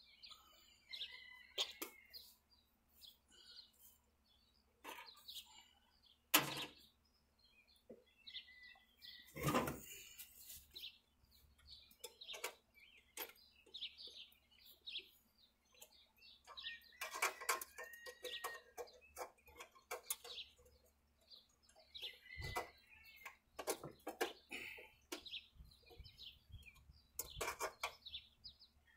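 Small birds chirping and calling on and off throughout, with scattered sharp clicks and knocks from hand work on a riding mower's engine, the loudest about six and nine seconds in.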